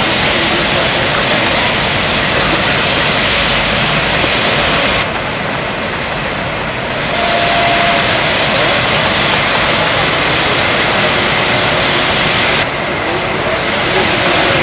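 Steady, loud hiss of steam escaping from an Indian Railways WP-class steam locomotive standing under steam. It dips in level twice.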